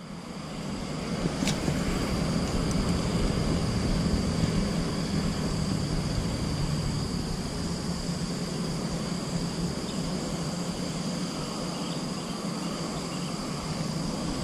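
Steady outdoor drone of insects, one constant high note, over a low steady hum, with a single sharp click about a second and a half in.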